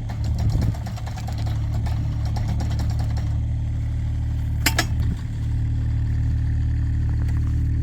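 Kubota mini excavator's diesel engine running steadily while it drives a hydraulic post-hole auger drilling a hole, with light clattering near the start and one sharp clink a little past halfway.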